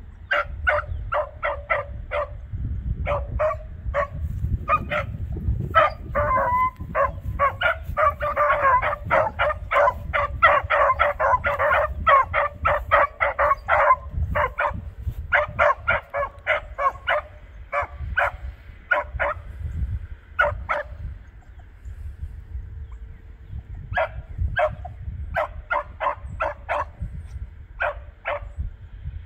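Beagles barking on a scent trail, giving short, quick barks in runs, with a fast flurry about a third of the way in and a brief lull about three-quarters through. A steady low rumble sits underneath.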